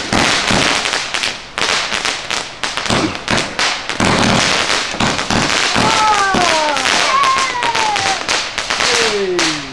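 Fireworks crackling: a dense, rapid run of sharp cracks and pops, with several long falling tones in the second half.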